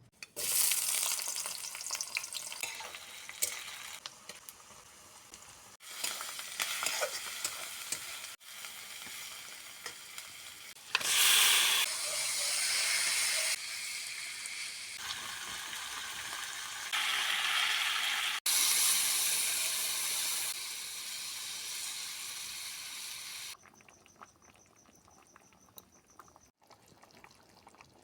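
Food sizzling in hot oil in a cooking pan, in a run of short clips that cut in and out every few seconds. The loudest stretch is about 11 seconds in, and near the end it drops to a faint hiss.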